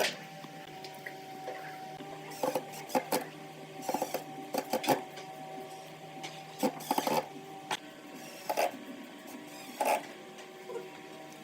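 Wooden parts and tools clicking and knocking irregularly, a dozen or so sharp knocks spread through, over a steady hum.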